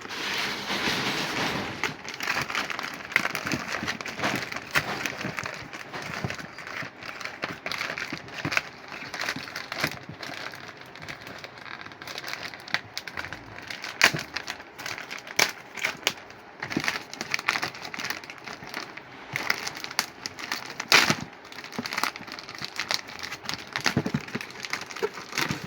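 Packaging being opened in an unboxing: plastic wrap and a cardboard box crinkling and crackling, with frequent sharp clicks and knocks as they are handled.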